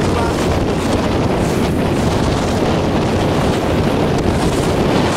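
Strong wind buffeting the microphone, a steady loud rushing.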